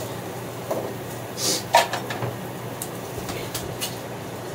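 Scattered clicks and knocks of kitchen items being handled, with a short rustle or scrape about a second and a half in, over a steady low hum.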